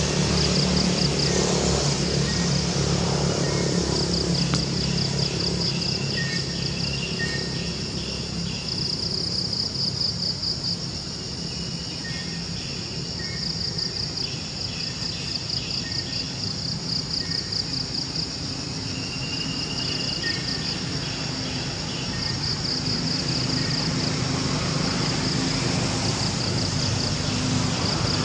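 Insects chirping in fast, rhythmic pulsing trills that come and go, with scattered shorter chirps, over a low steady hum.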